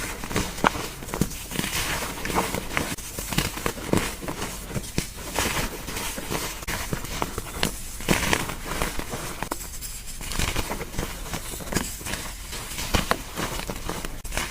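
Gym chalk crushed by hand: irregular crunching and crumbling with many small crackles throughout.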